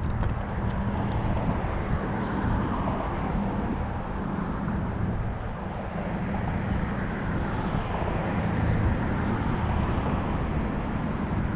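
Steady engine drone, unchanging throughout, over a constant rushing outdoor noise.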